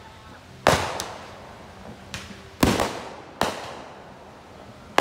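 Aerial fireworks exploding overhead: a string of sharp bangs, three loud and two fainter, each trailing off in a rolling echo.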